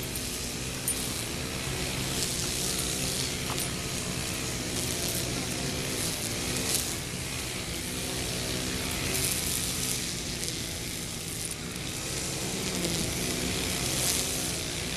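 An engine running steadily nearby: a constant low hum that wavers a little in pitch, over a hiss.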